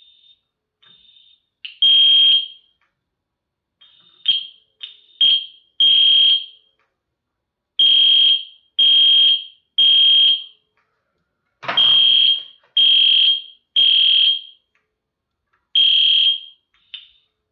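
Edwards Genesis G1R-HDVM mini horn strobe sounding its high electronic horn in loud blasts of under a second, some in sets of three about a second apart, with irregular gaps and a few clipped short bursts. The horn only sounds while its wiring terminals are pushed down, so a poor connection keeps cutting it out.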